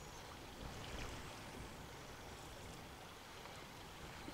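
Faint, steady outdoor noise of wind rumbling on the microphone and sea water along the pier, with a few faint ticks.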